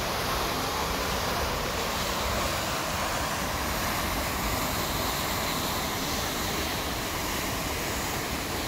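Water gushing out of a dam's open bottom sluice outlet and churning in the river below: a steady, unbroken rush of white water.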